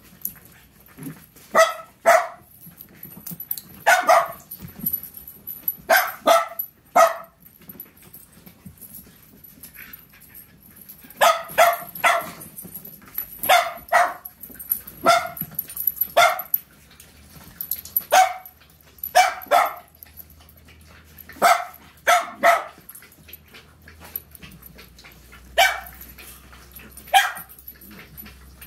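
Puppies barking in short, sharp yaps, often two in quick succession, repeated every few seconds with brief pauses between.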